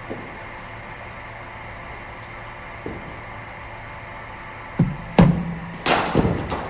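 Steady hum of a cricket bowling machine running. About five seconds in, a ball is fired from it and struck with a cricket bat, heard as a quick cluster of sharp knocks and cracks.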